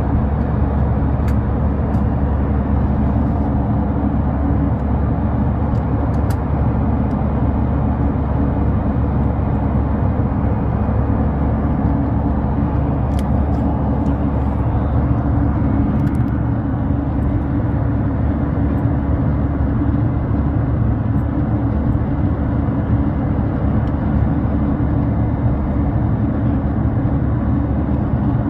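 Steady low rumble of an airliner cabin in flight: engine and airflow noise heard from a window seat.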